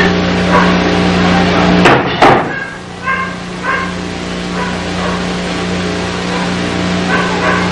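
A dog barking several times in short single barks, with two sharp loud knocks about two seconds in, over a steady low hum.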